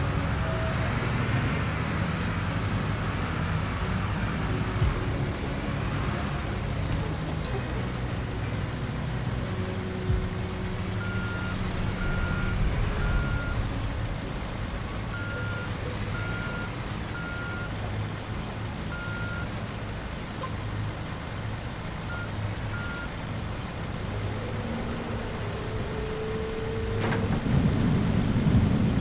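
Heavy diesel paving machinery running steadily, with a reversing alarm sounding in short beeps, in several groups, from about a third of the way in to past the middle. Near the end the low rumble swells louder.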